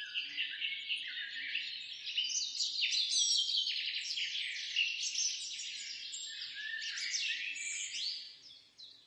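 Many small birds chirping and singing at once, a dense chorus of quick, high overlapping notes that fades out near the end.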